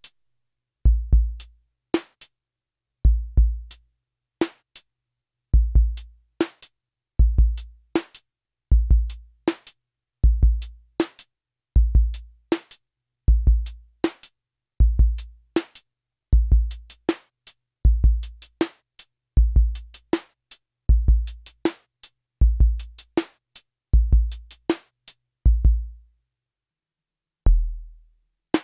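MFB-501 Pro analog drum machine playing a slow programmed chillout beat. Deep kick drums sound in close pairs about every second and a half, with short sharp hi-hat-like ticks between them. Near the end the pattern stops and one kick sounds on its own.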